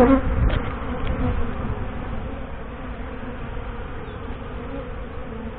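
Honey bees buzzing in flight around the hive. It starts with a loud close pass and settles into a steady hum of many bees. The colony is in heavy flight, which the beekeeper took for possible pre-swarm activity.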